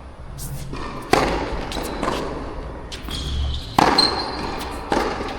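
Tennis rally: a series of sharp racket strikes and ball bounces on the court, roughly a second apart, over a low rumble of wind on the microphone.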